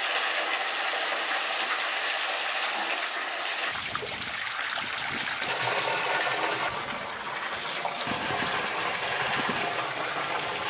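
Water gushing steadily out of the open end of a PVC pipe and splashing down into a trough. The rush grows fuller and deeper from about four seconds in.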